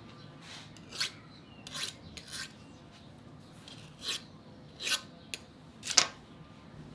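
About six short scraping strokes as excess shortcrust dough is trimmed off the rim of a tart ring.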